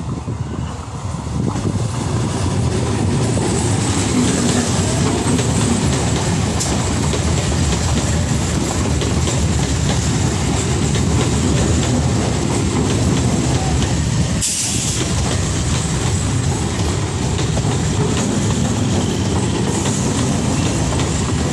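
Indian Railways electric multiple-unit suburban local train passing close by: a steady loud rumble and rattle of its wheels on the rails. It builds over the first two or three seconds as the train arrives.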